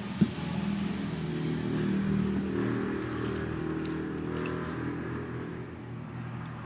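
Steady engine hum of a motor vehicle, growing louder to a peak about two seconds in and then slowly fading. A single sharp click sounds just at the start.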